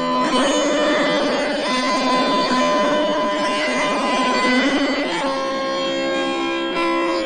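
Instrumental music: layers of held pitched notes over a dense, busy texture, shifting to new notes every second or two.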